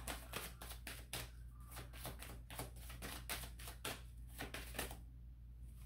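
A deck of oracle cards being shuffled hand over hand: a quick, soft run of card flicks and slaps, about five a second, that dies away about five seconds in.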